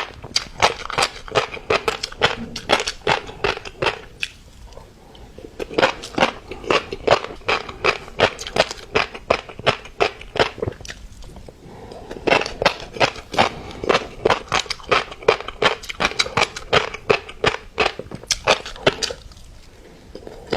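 Close-miked chewing of fish roe, the small eggs popping and crunching in quick, sharp clicks several times a second, with brief pauses about four, eleven and nineteen seconds in.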